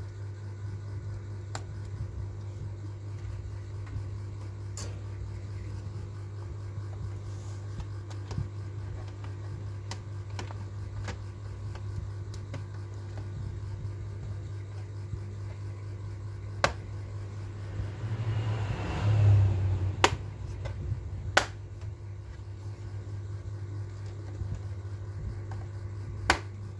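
Steady low electrical hum with scattered sharp clicks, and a brief louder rustling noise about eighteen seconds in.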